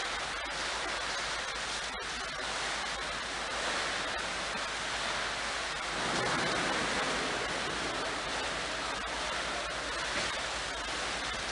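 Water jets splashing and running into a clam holding tank: a steady rushing noise with a low hum beneath it.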